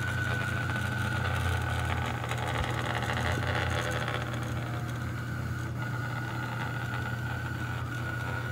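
Stepper motors and belt-driven carriages of a large home-built delta 3D printer running a mock print at full speed: a steady low hum with a thin high whine above it that drops out briefly around the middle. The motion is a bit jumpy, which the builder thinks comes from running the graphical LCD while printing from the SD card.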